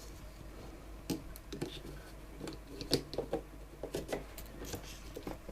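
Scattered light clicks and rustling handling noises as a DDR4 memory stick is fitted into a motherboard's memory slot.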